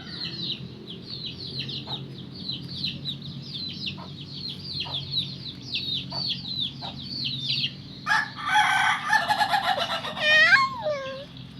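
Village chickens: chicks peeping over and over in high, falling notes, then a rooster crowing about eight seconds in, the crow ending in a long falling note.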